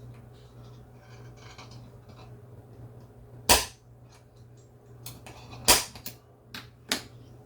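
Center punch marking the center of a diecast toy car's rivet for drilling: two sharp metallic snaps about two seconds apart, followed by a few lighter clicks.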